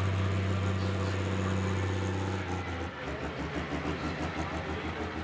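Diesel pulling pickup's engine running at steady high revs, then about two and a half seconds in the note changes to a lower, rapid even throbbing.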